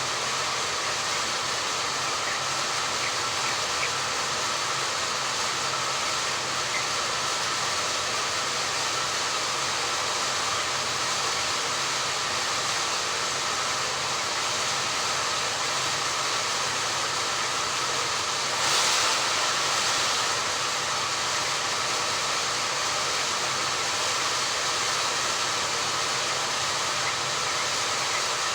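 Steady machine hum with a hiss, and a brief louder surge of hiss about two-thirds of the way in.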